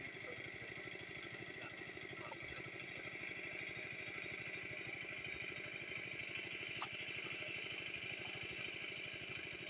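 An engine running steadily at idle with an even, fast pulse, plus a click about seven seconds in.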